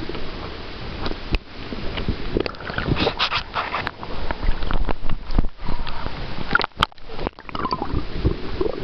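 Water rushing and sloshing over an underwater camera, with irregular knocks and scrapes as it is moved and bumped at close range.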